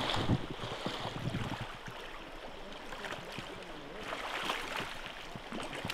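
River water running and splashing around a wader's legs in a shallow stream, with wind buffeting the microphone in the first second or so.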